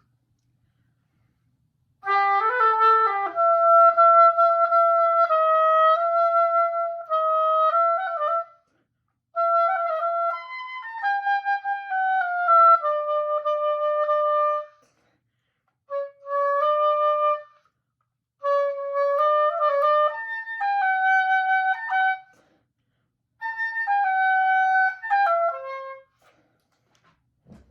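Solo oboe playing a melodic passage in five phrases with short breaks for breath, mostly held notes moving in steps, starting about two seconds in.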